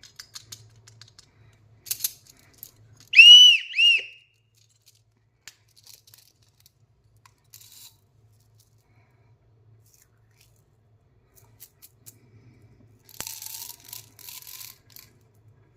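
Light clicks of candy packaging being handled. About three seconds in, two short, high whistle-like toots that bend up and down in pitch, the loudest sound. Near the end, a plastic candy wrapper is crinkled and torn open.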